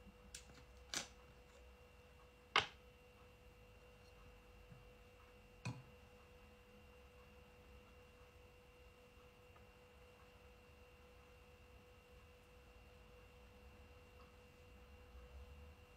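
Near silence under a faint steady tone, broken by a few small clicks and knocks, the loudest about two and a half seconds in: a plastic cap being twisted off a glass hot-sauce bottle and set down on a wooden table.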